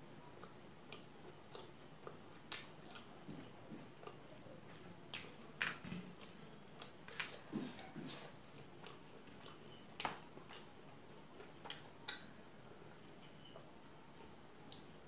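A person eating chowmein noodles by hand: faint chewing and wet mouth clicks, with a few sharper smacks standing out here and there.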